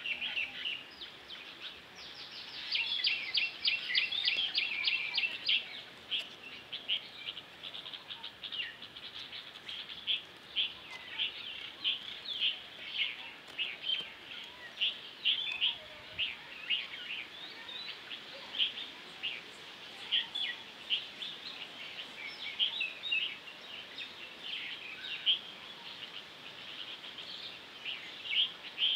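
Small birds chirping: short high chirps come in a dense, rapid run a couple of seconds in, then scattered chirps follow at an uneven pace.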